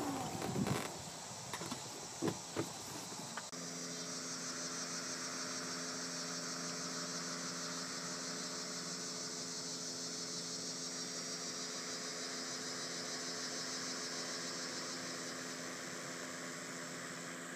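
A few light knocks, then from about three and a half seconds in a steady chorus of insects, a fast pulsing trill, over a low steady hum.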